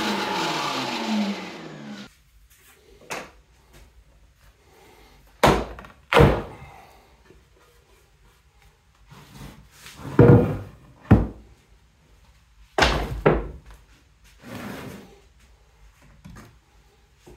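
A power tool's motor spins down with falling pitch and stops about two seconds in, followed by a string of irregular wooden thunks and knocks as the oak board and workpieces are handled and set down on the bench.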